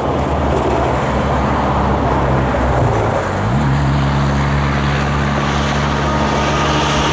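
Union Pacific diesel-electric locomotives led by a GE ES44DC approaching, their engines running with a steady low drone. About halfway through, the engine note steps up in pitch.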